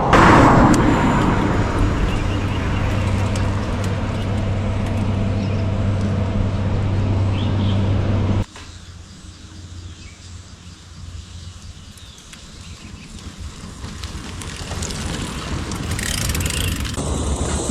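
Road traffic: a motor vehicle's engine running steadily close by, cut off abruptly about halfway. Quieter road noise follows and gradually builds toward the end.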